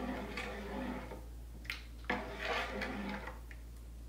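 Kitchen utensils and bowls clattering and scraping in two bursts of about a second each, with a few sharp clicks between.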